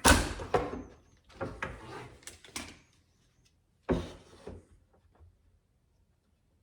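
Handling noise from fitting a drawer slide and jig inside a wooden cabinet: a sharp knock at the start, then about two seconds of scraping and sliding, and a second knock about four seconds in.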